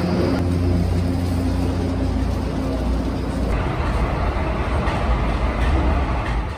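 São Paulo Metro Green Line train running between stations, heard from inside the car: a steady loud rumble with a low motor hum. About three and a half seconds in, the hum gives way to a rougher, brighter rumble.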